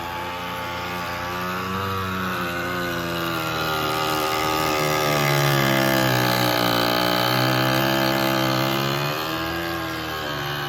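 GE Opal nugget ice maker making a loud, horrible droning noise with a wavering pitch. It swells louder past the middle and eases off near the end. The owner takes it as a sign that something is definitely wrong with the unit.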